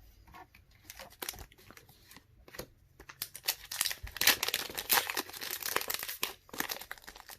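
Foil wrapper of a Pokémon card booster pack being torn open and crinkled by hand: a few light handling rustles at first, then dense crackling and tearing from about three seconds in.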